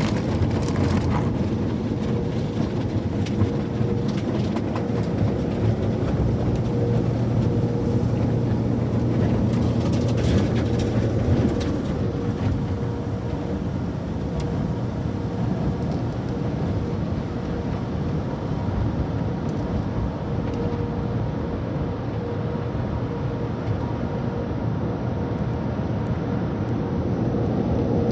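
AVW tunnel car wash heard from inside the car's cabin: cloth wash material and spraying water working over the body and glass, over a steady machinery hum. There are more slaps and patters in the first half, and it runs steadier later on.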